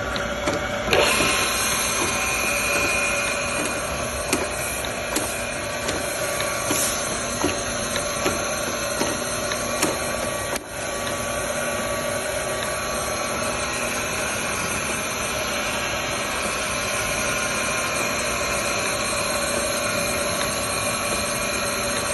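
Kent surface grinder running: a steady hiss and hum from the spinning wheel and machine, with light ticks a little under twice a second through the first half.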